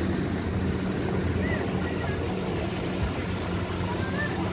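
Pond aerator churning the water, its motor running with a steady low hum.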